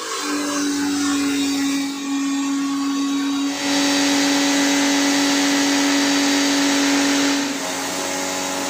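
Portable electric pressure washer running with a steady motor hum while its water jet hisses against a motorcycle. The spray hiss grows louder a few seconds in and eases off near the end.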